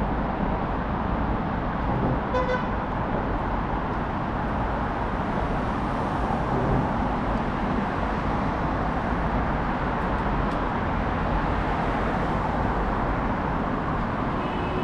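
Steady road traffic noise, with a vehicle horn giving one short toot about two seconds in.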